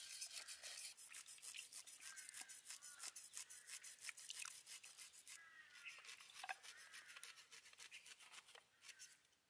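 Quick, soft scraping strokes of knives, several a second: whole fish being scaled with knives on wooden boards, then a knife working over a cucumber. The scraping thins out and fades near the end.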